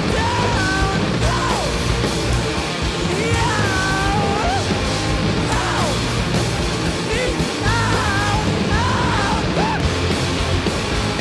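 Rock band playing live: electric guitars, bass guitar and drums, loud and dense, with a melody line sliding up and down above the steady beat.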